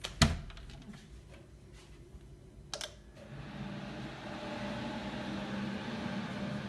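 A sharp click, a few lighter clicks, and then about three seconds in a steady mechanical hum starts up and keeps running, like a motor or fan switched on.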